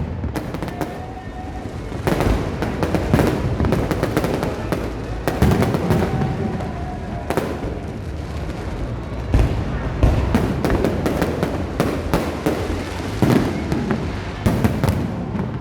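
Fireworks display going off: a dense run of bangs and crackling with no pause.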